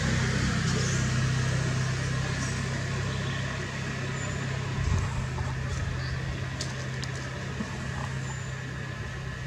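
A motor vehicle's engine running with a steady low hum, slowly fading.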